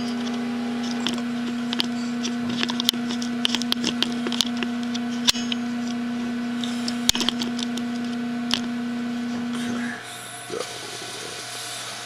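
Epson SureColor F2100 direct-to-garment printer running with a steady mechanical hum and scattered light clicks. The hum stops about ten seconds in.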